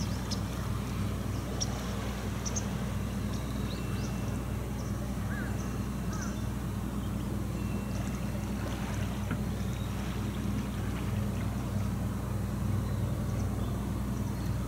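A steady low engine hum with a slight even pulse.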